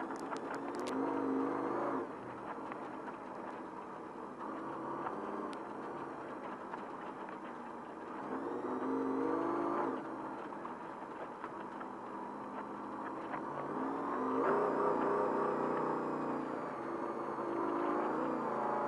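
Trophy Truck engine heard onboard, revving up and easing off again and again as it is driven along a rough dirt trail, with a few sharp clicks near the start.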